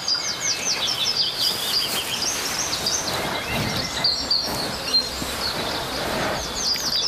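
Forest birdsong: a songbird repeats a quick phrase of chirps that step down in pitch, near the start and again near the end, over a steady outdoor hiss. In the middle a lower, rough breathy sound runs for about three seconds.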